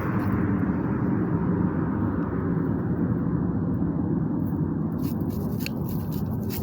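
Loud, steady rushing noise from high in the sky, like a giant blowtorch, from an unseen source taken for a jet. It grows slowly duller and slightly quieter, as if moving away.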